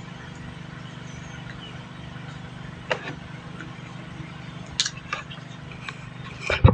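Eating sounds: a few sharp mouth clicks over a steady low hum, then a louder burst near the end.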